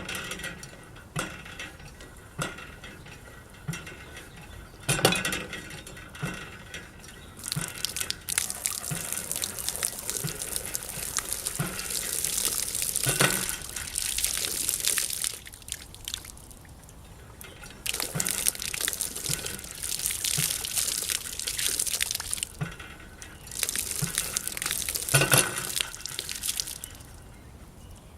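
Water gushing and splashing in three long runs that start and stop, with sharp knocks in between.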